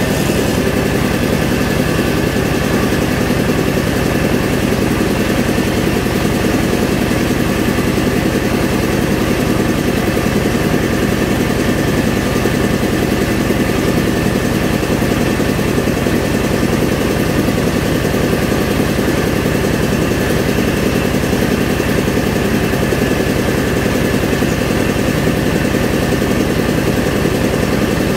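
Rice milling machine and the engine that drives it running steadily at constant speed, a loud unbroken machine drone.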